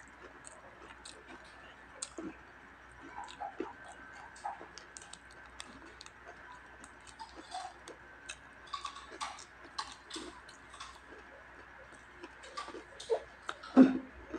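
Close-up mouth sounds of chewing crispy fried skin: many small crackling crunches at irregular intervals, with a louder crunch near the end.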